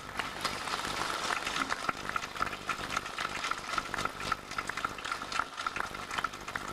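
Audience applauding: a dense crackle of many hands clapping that starts suddenly and goes on at a steady level.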